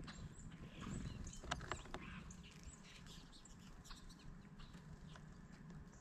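Faint chirps and short calls from small birds, with a few sharp clicks about a second and a half in, as European starlings peck through mixed seed in a mesh tray feeder.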